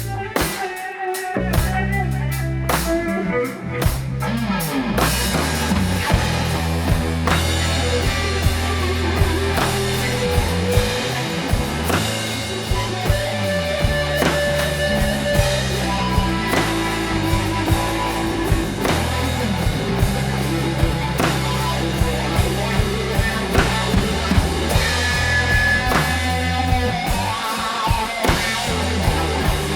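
Live rock trio playing an instrumental passage with no vocals: guitar, bass guitar and drum kit. The opening few seconds are sparser, and the full band with steady drum hits comes in about five seconds in.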